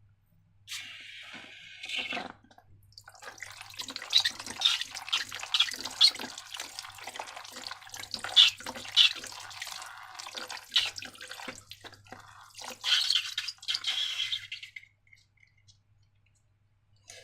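Wet slime squishing and dripping: an irregular run of small sticky pops and squelches for about twelve seconds, after a brief rustle near the start.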